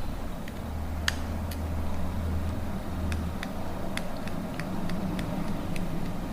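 Light, irregular clicks and ticks from a precision Phillips screwdriver and tiny screws being worked out of a small plastic camera casing, about a dozen in all, over a low steady hum.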